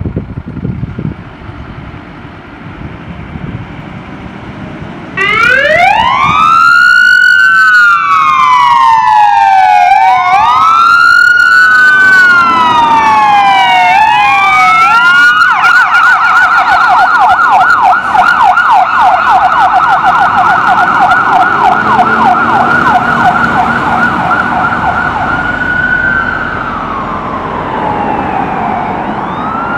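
Fire engine's siren on a pumper turning out. After about five seconds of engine and road noise it starts with a slow wail that rises and falls, switches to a fast yelp about halfway through, then drops back into a slow wail near the end.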